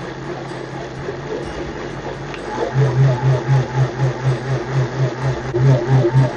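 Electric mixer grinder running, its steel jar wet-grinding soaked rice and urad dal into dosa batter. A steady motor hum that, a little under three seconds in, turns into a louder rhythmic throb of about three to four beats a second.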